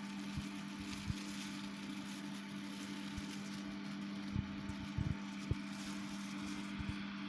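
VENTS 100M1 bathroom extractor fan running steadily: an even motor hum over a rush of air, with a few faint low knocks.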